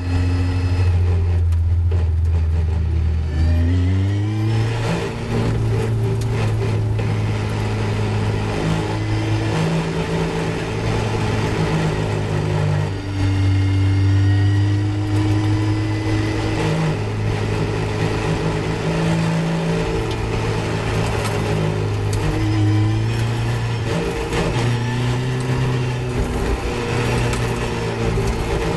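Caterham 420R's four-cylinder engine heard from on board at low speed: the revs rise about two to four seconds in, then it runs fairly steadily with small changes in pitch, over a steady rush of noise.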